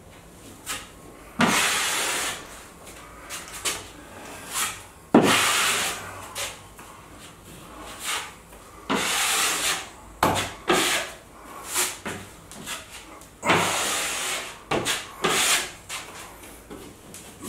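Drywall knife scraping joint compound across drywall: about four long swipes of a second or more, with shorter scrapes in between.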